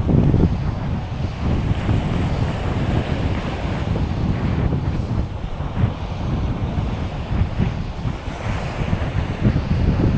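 Wind buffeting the microphone in uneven gusts, over a steady wash of waves on the beach.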